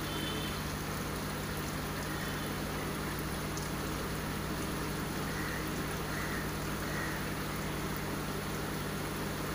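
Steady wash of running water with the low, even hum of aquarium pumps, unchanging throughout.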